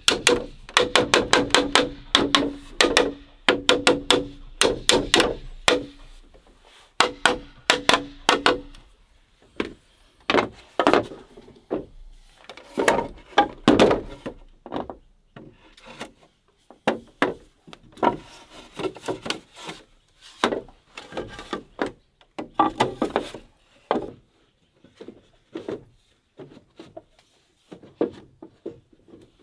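Green bamboo poles being knocked in quick succession, each knock ringing with a hollow tone, for about eight seconds. Then come looser knocks and scraping as bamboo crossbars are worked into holes in bamboo posts. It dies down near the end.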